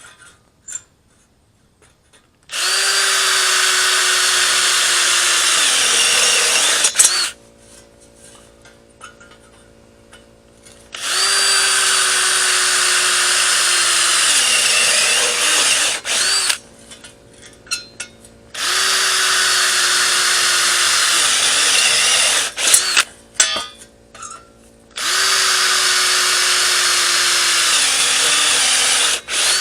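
A handheld power tool working sheet metal, run in four steady bursts of about four seconds with short pauses between them. Its motor note drops away as each burst is released.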